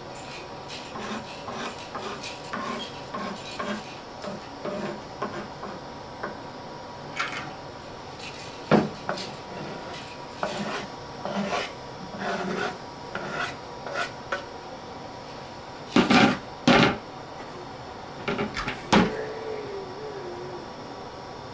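Kitchen knife chopping and scraping minced garlic on a bamboo cutting board: a quick, uneven run of light knocks, then fewer, louder knocks and clatters, the loudest pair about 16 seconds in.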